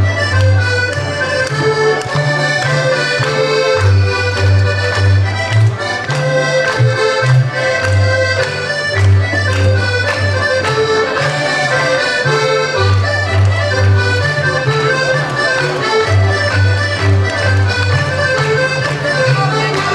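Live accordion playing a lively traditional folk dance tune, with a steady beat and alternating bass notes under the melody.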